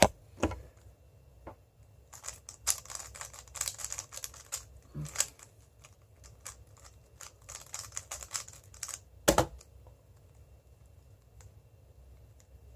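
Moyu WeiLong GTS2M 3x3 speedcube being turned by hand in quick, irregular runs of plastic clicks while it is scrambled between solves, with a louder knock about nine seconds in, then the clicking stops.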